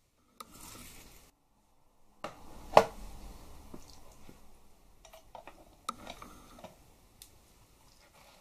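Handling noise from a small digital kitchen scale being put down on a tabletop and a micro quadcopter set on it: a short scrape or rustle, one sharp knock a little under three seconds in, then light clicks and rustles.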